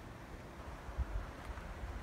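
Wind buffeting the microphone in low rumbling gusts, strongest about a second in, over a faint outdoor hiss.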